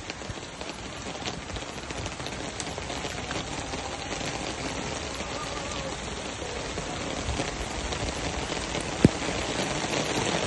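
Steady watery pattering and crackling, with a single sharp knock about nine seconds in.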